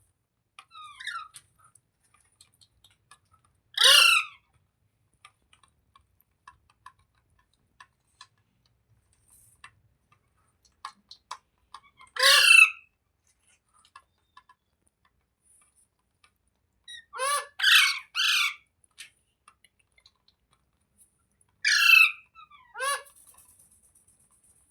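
Parrot giving short, loud squawks spaced several seconds apart, with a quick run of three just past the middle.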